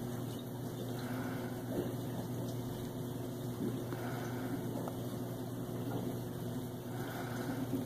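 A steady low electrical or mechanical hum over a constant hiss, with a faint soft swell about every three seconds.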